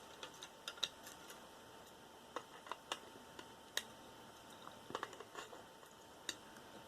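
Faint, irregular small clicks and ticks of hands working at a cut-open cable, pulling the copper wire out.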